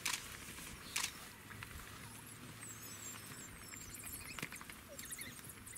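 African painted dogs (African wild dogs) twittering: a scatter of short, high-pitched chirps and squeaks, broken by a few sharp clicks, the loudest right at the start and about a second in.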